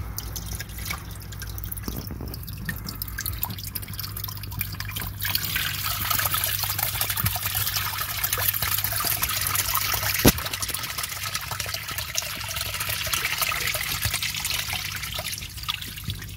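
A filter's water jet pours and splashes onto a freshwater turtle's shell and into the tank water. The trickling grows louder from about five seconds in, over a steady low hum, with one sharp click a little after ten seconds.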